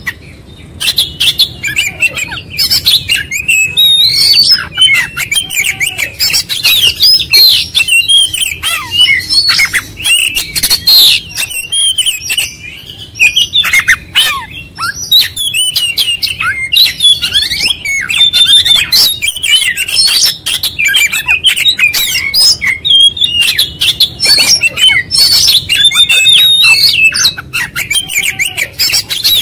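Oriental magpie-robin (kacer) singing nonstop in fast, varied whistled and chattering phrases, pouring out its repertoire of learned song, with a short lull about halfway.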